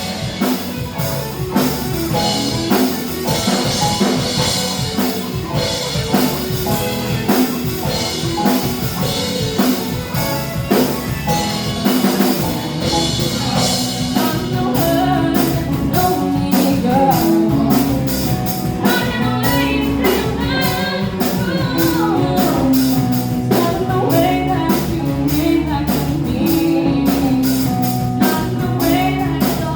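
Live rock band playing: drum kit, electric guitar and bass, with singing.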